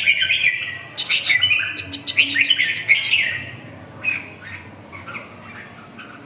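Caged red-whiskered bulbuls calling and singing: a busy run of quick, sharp chirps and short warbled notes for about three seconds, then fainter scattered calls.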